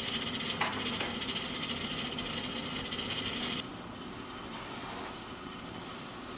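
Gas stove burner hissing steadily on high under a stainless steel pot, with two light clicks about a second in. The hiss cuts off suddenly a little past halfway, leaving only a faint steady background.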